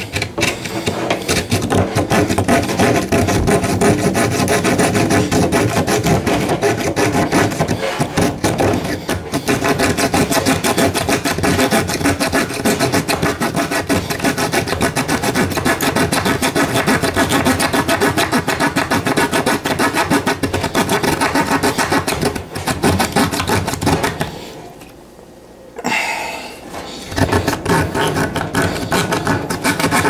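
Hand sawing a wooden board with the small saw blade of a Leatherman Blast multi-tool: a continuous rasp of rapid back-and-forth strokes, with a short pause about three-quarters of the way through before the sawing resumes.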